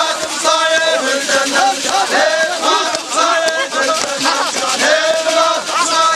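A crowd of men chanting a hosa, the Iraqi tribal war chant, in many overlapping voices with no single clear word.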